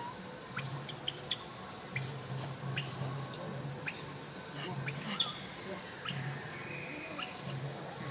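Outdoor ambience of insects, with a thin steady high drone. Short high bird chirps and small sharp clicks are scattered through it.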